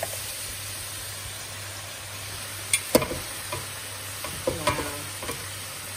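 Vegetables sizzling in a frying pan as cooked rice is tipped in from a metal pot. There are two sharp knocks about three seconds in, with a few lighter taps after, from the pot and spatula against the pan.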